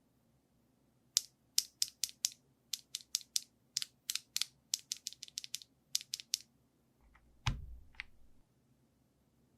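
Typing on an Akko MG108B mechanical keyboard with Akko V3 Piano Pro switches: a run of about two dozen crisp keystrokes at an irregular pace. Near the end comes one deeper, heavier thump, then a last keystroke.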